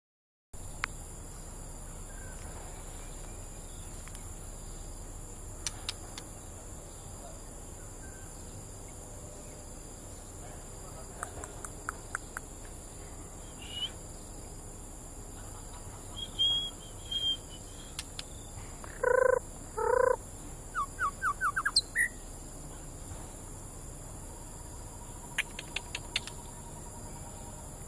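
White-rumped shama giving scattered short calls and chips rather than full song, from a one-year-old bird its owner says is not on form. The loudest sounds are two harsh calls about two-thirds of the way through, followed at once by a quick run of short notes. Throughout, there is a steady high insect drone.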